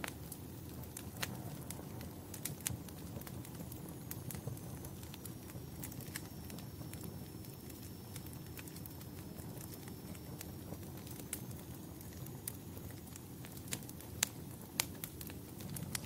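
Wood fire in a fireplace crackling, with sharp pops scattered through over a low steady rumble of the flames; a few of the loudest pops come near the end.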